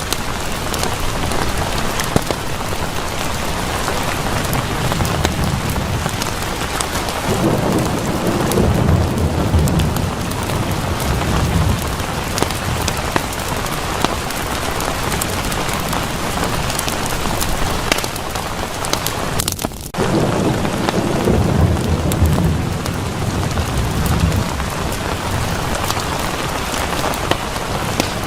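Steady heavy rain with scattered sharp ticks. Low rolling thunder swells in twice, about a quarter of the way in and again just past two-thirds. The sound dips out for a moment just before the second rumble.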